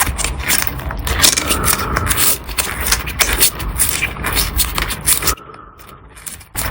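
Small metal tools scraping and clicking against watch parts, with a quieter pause of about a second near the end.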